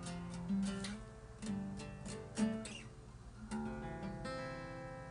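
Acoustic guitar playing the instrumental outro of a song: single plucked notes, then a chord struck about four seconds in and left to ring out.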